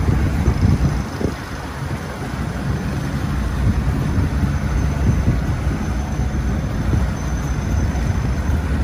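Twin outboard motors of a small boat running steadily at speed, a low continuous drone, with wind rushing over the microphone.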